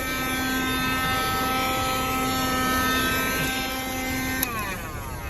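A 1973 Dynamic handheld car vacuum runs with a steady whine. About four and a half seconds in it clicks off and the motor winds down, its whine falling in pitch.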